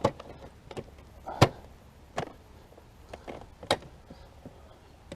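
Plastic body panels of a Can-Am Spyder RT being handled and pressed into place: a series of about six sharp clicks and knocks, the loudest about a second and a half in.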